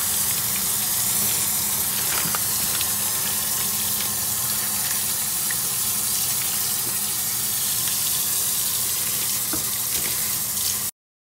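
Hot water running from a kitchen faucet into a stainless steel sink, splashing over a bagged frozen fish fillet held under the stream: a steady rush that cuts off suddenly near the end.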